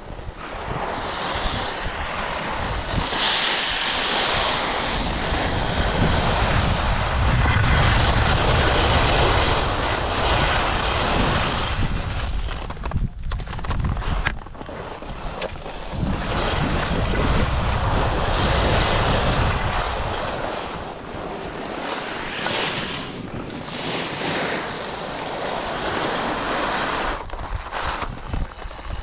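Skis sliding and scraping over snow, with wind buffeting the camera microphone in gusts that swell and ease.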